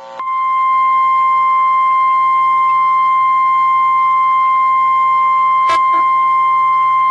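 NOAA Weather Radio warning alarm tone: a loud, steady single tone near 1050 Hz, with one brief click about six seconds in. The tone signals that an urgent warning broadcast follows.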